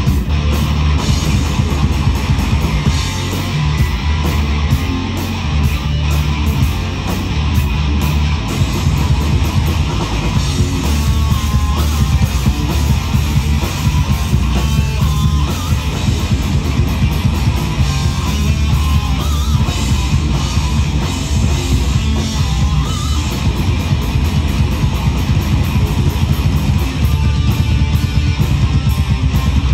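Live rock band playing loud, with electric guitars over a drum kit.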